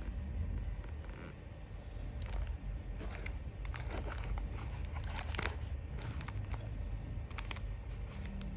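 Die-cast toy car packaging being opened by hand: a run of crinkling, tearing and clicking from about two seconds in, over a steady low hum.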